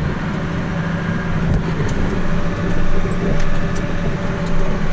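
Semi truck's diesel engine idling steadily, with a few light clicks over it.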